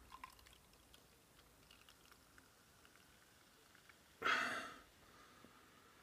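Beer being poured from a bottle into a glass, faint, with a few light clicks of glass, then a short, sharp breath through the nose a little past four seconds in that is the loudest sound.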